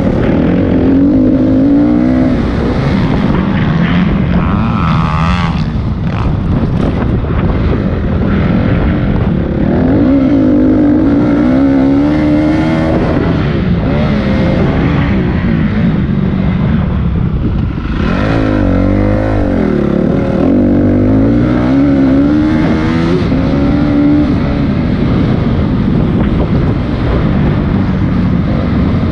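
Dirt bike engine revving hard and easing off again and again as the bike is ridden around a motocross track, its pitch climbing and dropping several times.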